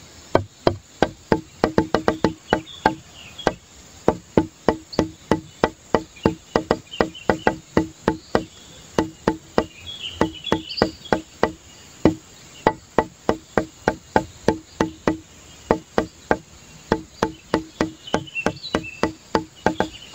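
Background music with a quick, even wood-block-like beat, about four knocks a second, pausing briefly now and then.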